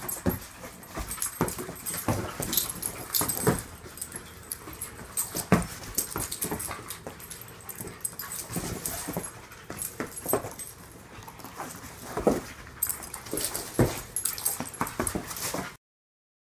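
Two dogs play-wrestling on foam floor mats: irregular scuffling and paw thumps with short dog vocal sounds now and then. The sound stops abruptly near the end.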